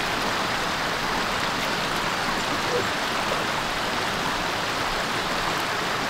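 Shallow creek flowing steadily: a constant, even rush of moving water.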